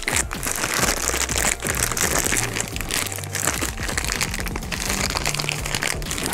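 Packaging crinkling and rustling in irregular crackles as an engine-management wiring harness is unwrapped by hand.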